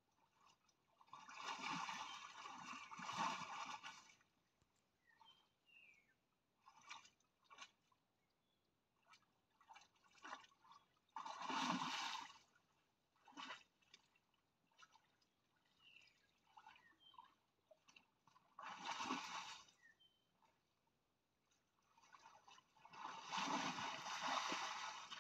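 Splashing and sloshing of shallow muddy water as a spotted hyena wades and lunges with its head under, hunting a fish. It comes in four bursts of a second or two, with small drips and splashes between them.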